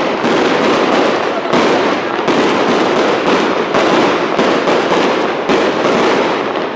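Fireworks display: aerial shells bursting overhead one after another, a dense run of bangs and crackling with no pause.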